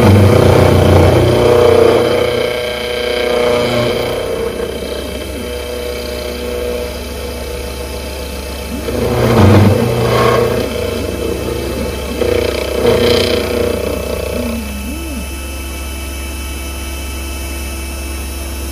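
CNC milling machine's end mill cutting a connecting rod from a metal blank: a steady spindle-and-cutting whine that gets louder during heavier passes, near the start, around ten seconds in and again around thirteen seconds.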